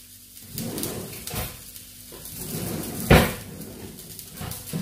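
Kitchen clatter while cooking: rustling handling noise with a couple of light knocks, and one sharp knock about three seconds in.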